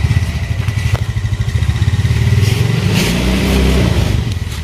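A motorcycle engine running loud and close. Its pitch rises and falls back once, past the middle, before it eases off near the end.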